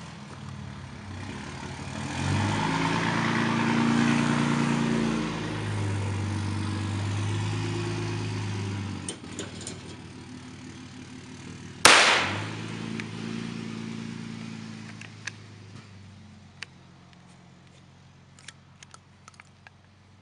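A single 12-gauge double-barrel shotgun blast about twelve seconds in, bursting a bottle of paint against a pane of glass, with a short echo after it. Before it, a loud steady drone of several held tones fades down about nine seconds in. A few faint clicks come near the end.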